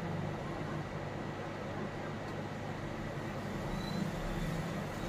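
Steady background noise with a low hum and a faint high steady tone, with no distinct events.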